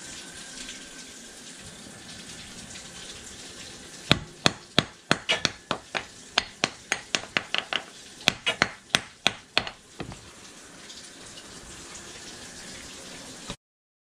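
Steady hiss of running water from the sewer jetter's hose line in the drain, with a rapid run of sharp clicks and knocks, about four a second, for several seconds in the middle. The sound cuts off suddenly near the end.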